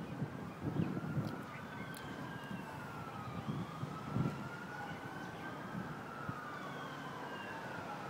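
Faint wailing siren, its pitch rising and falling slowly over several seconds at a time, with a few soft low bumps on the microphone.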